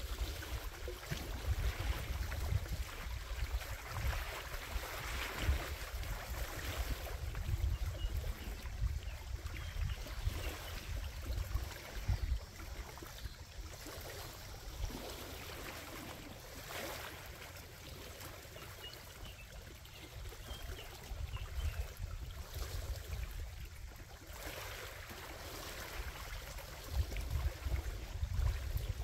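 Small waves lapping and washing against a rocky lakeshore, swelling and easing every few seconds, with wind rumbling on the microphone.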